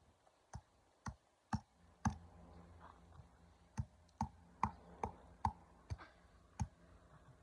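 A series of short, sharp knocks, about two a second, in two runs with a pause of over a second between them.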